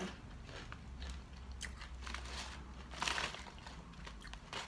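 Faint crunching and chewing of a crisp jalapeño-cheddar snack chip, with a short burst of louder crunches about three seconds in.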